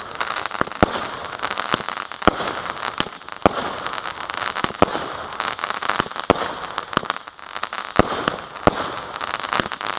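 Fireworks going off: irregular sharp bangs, one or two a second, over steady crackling.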